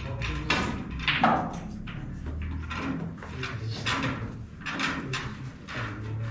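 Irregular clicks and knocks of snooker balls and cues in a snooker hall, the sharpest about a second in.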